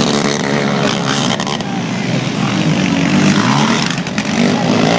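Several racing ATV and three-wheeler engines running hard together as the pack laps a dirt track. Their overlapping engine notes rise and fall with throttle.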